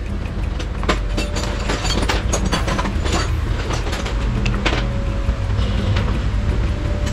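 Irregular sharp clicks and knocks of metal engine parts and tools being handled, over a steady low rumble.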